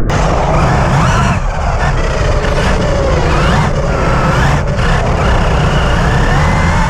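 Electric motors of large RC cars whining, their pitch rising and falling several times as the cars speed up and slow down, over a steady low rumbling noise.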